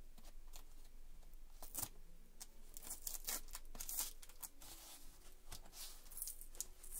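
Brown paper packaging being torn open by hand: a series of short, irregular rips and crinkles.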